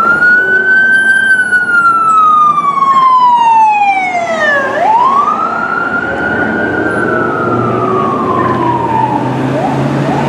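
Ambulance's electronic siren on a slow wail: a tone that sweeps up quickly and then falls slowly over about four and a half seconds, twice. The wail stops near the end, followed by a few short rising chirps.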